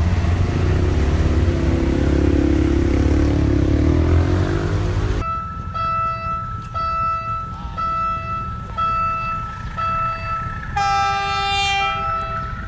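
A PNR train of 203-series coaches rumbling away along the track, with a deep engine drone, until a sudden cut about five seconds in. After the cut a short electronic warning tone repeats about every 0.8 seconds, and a train horn sounds for about a second near the end.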